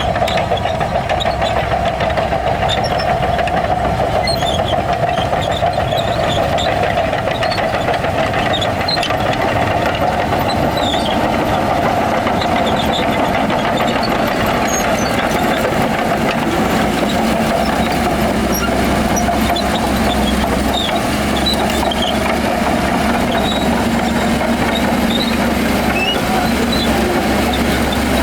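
Heavy diesel engine of a Shantui bulldozer running steadily with a continuous drone.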